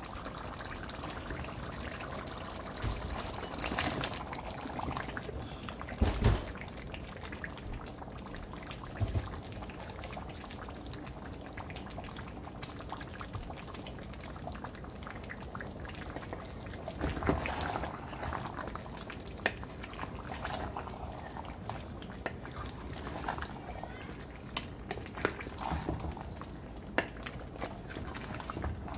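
Beef curry bubbling in a steel pot while chunks of kabocha squash are dropped in with splashes and knocks, then stirred through, the pieces clunking against the pot.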